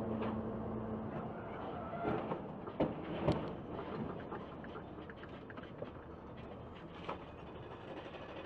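Dashcam-recorded road and engine noise with a steady hum that drops away after about a second and a half, then a few sharp bangs and knocks between about two and three and a half seconds in as a silver pickup truck ahead crashes into the median guardrail, followed by rumbling road noise.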